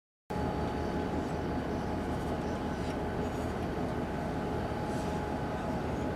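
Locomotive running with a steady low rumble and a faint steady whine, starting abruptly a moment in.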